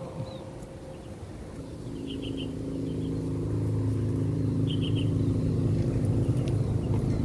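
A motor vehicle's engine runs at a steady pitch and grows steadily louder over the first few seconds, as it draws near.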